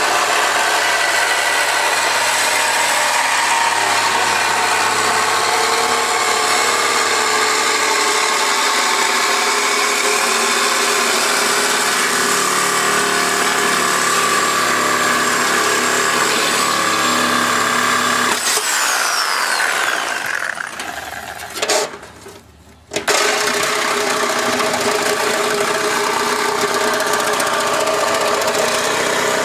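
Electric power tool running steadily with a high whine; about two-thirds of the way through it is switched off and winds down with a falling whine, then starts again at full speed a few seconds later.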